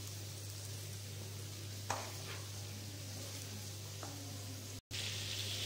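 Small gooseberries sautéing in sesame oil in a pan, a faint steady sizzle, with a light tap of the wooden stirring spoon about two seconds in.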